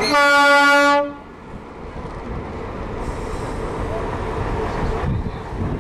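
Train horn giving one steady-pitched toot about a second long, followed by a low steady rumble of the train and surroundings.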